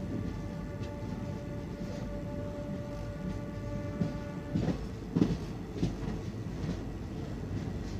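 Passenger train coach rolling slowly, a steady low rumble of wheels on rail. A faint steady tone runs through the first four and a half seconds, then stops, and a few heavier knocks come between about four and six seconds in.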